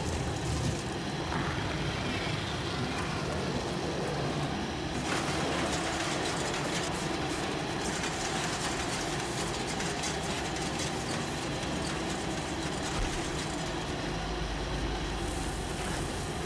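Steady, dense rumbling noise from a horror-film soundtrack, with a low hum growing stronger near the end.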